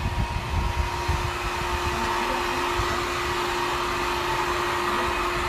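Steady whir of a small electric blower motor, with a constant hum tone under it. Some low bumps come in the first two seconds.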